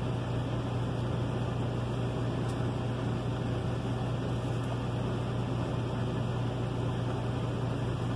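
A steady low machine hum with an even hiss, like a fan or air-conditioning unit running.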